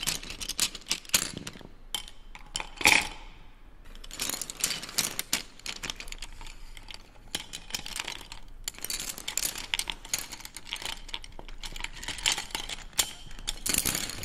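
Irregular clicking and rattling, dense clusters of small sharp ticks and clatters with short pauses between them. One louder clatter comes about three seconds in.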